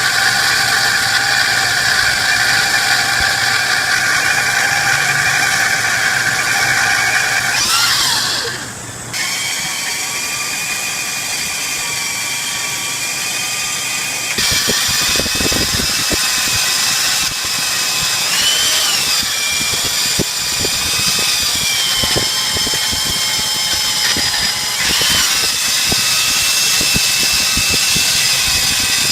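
A machine-tool motor running with a steady high whine. The pitch shifts and the sound briefly dips about eight seconds in, then the motor runs on with small wobbles in pitch.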